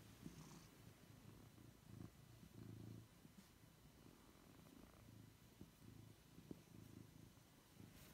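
Black-and-white domestic cat purring softly while being stroked, a faint low rumble that swells and fades in regular pulses.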